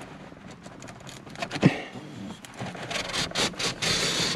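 Front sunshade of a Jaguar XJL being forced by hand along its roof track, with the sunroof motor removed: uneven rubbing and scraping broken by sharp clicks, the loudest about one and a half seconds in. The shade is stuck in its track and moves only with effort.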